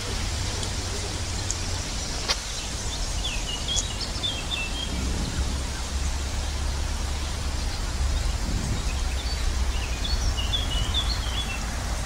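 Small birds chirping in short, quick calls a few seconds in and again near the end, over a steady low rumble and hiss of outdoor background noise.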